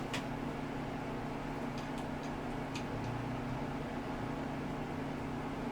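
A steady low machine hum, with a few faint light clicks as the desoldering iron's handpiece is fitted into its metal stand.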